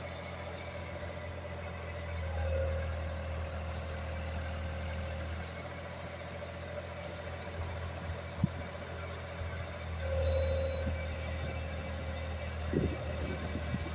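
Skid steer engine running steadily, pulling harder twice: about two and a half seconds in and again about ten seconds in. A single sharp knock comes about eight seconds in, and a run of knocks and clatters near the end, likely the machine working on the concrete.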